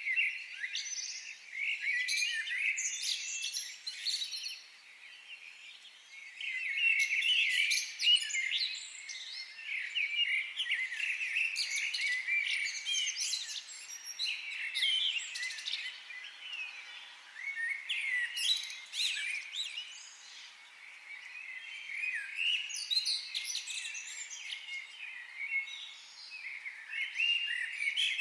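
Many birds singing and chirping at once: a dense chorus of high, quick, overlapping phrases that swells and eases, with brief lulls about five and twenty seconds in.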